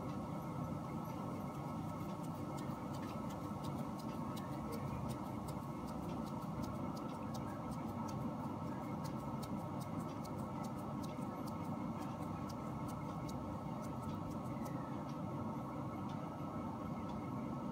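Soft, faint ticking of oiled fingers pressing and pinching sticky rice-flour dough into a cup, over a steady low background hum.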